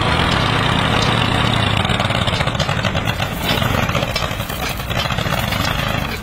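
Tractor engine running steadily, a fast even chugging with a low hum underneath.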